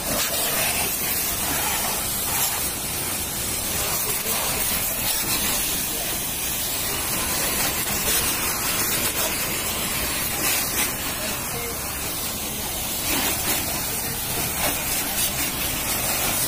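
Steady hiss of a high-pressure washer jet spraying water against a motorcycle's bodywork and wheel.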